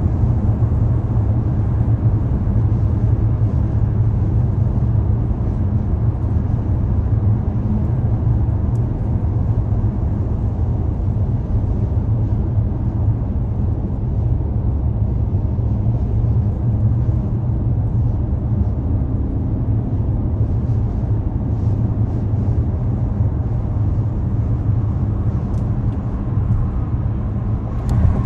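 Steady low rumble of a car driving, road and engine noise holding an even level, with a brief click near the end.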